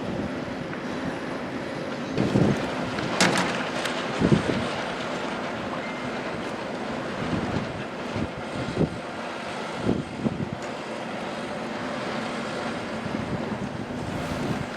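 Strong wind buffeting the microphone: a steady rushing noise with short sharp buffets every second or two.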